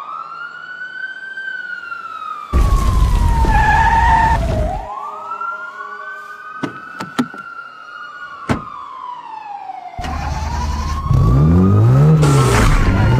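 Emergency vehicle siren wailing, its pitch rising and falling slowly. A loud rumbling noise comes in a few seconds in and lasts about two seconds, a few sharp clicks follow, and a louder rush of noise builds near the end.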